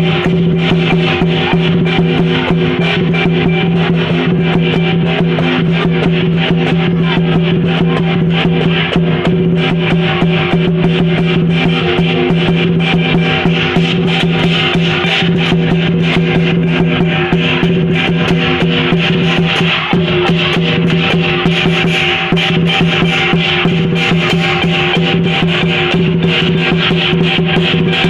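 Lion dance percussion: a drum beating steadily with clashing cymbals over sustained ringing tones. It stops abruptly at the end.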